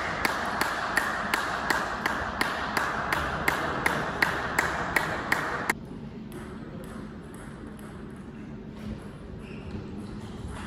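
A table tennis ball bounced over and over at an even pace of about three sharp pings a second, with a steady hiss under it. Both stop together about six seconds in.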